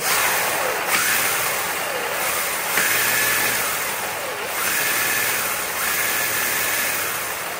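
Razor MX350 electric dirt bike with an MY1020 Plus motor and Kelly controller, geared 15/44, revved up: a loud steady motor whine and chain-drive noise that start suddenly, the whine dipping and recovering several times as the throttle is worked.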